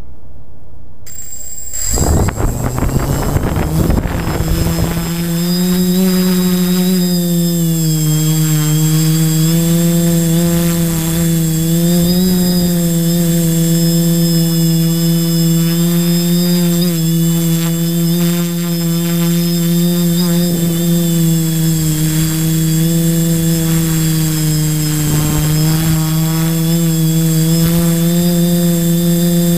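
A Flite Test tricopter's three motors and propellers spin up about two seconds in and lift off, then keep up a steady, loud multirotor drone with a high whine, the pitch wavering a little as the throttle shifts in flight. Heard up close from a camera mounted on the aircraft.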